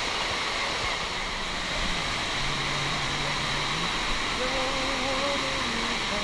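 Steady rush of a waterfall: Dunn's River Falls cascading over rock terraces, with faint voices underneath.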